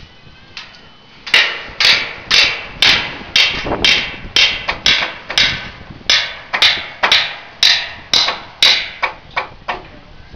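A hammer striking repeatedly at about two blows a second, some eighteen in all, each blow ringing briefly. The hammering starts about a second in and stops shortly before the end.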